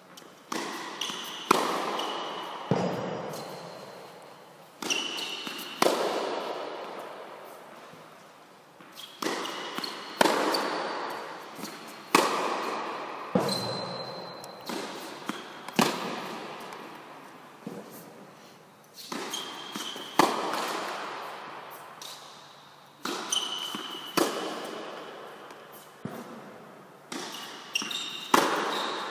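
Tennis rally: a tennis ball struck by a racket and bouncing on the court, sharp hits coming every one to two seconds, often in pairs. Each hit echoes and dies away slowly in the large indoor tennis hall. Short high squeaks come between some of the hits.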